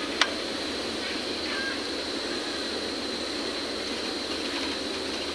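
Industrial overlock (serger) machine running steadily while sewing a trial overlock seam along the edge of a cloth, with one sharp click about a quarter second in.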